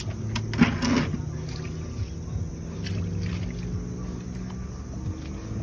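A steady low motor hum, like an engine running, with a short louder noise about half a second in.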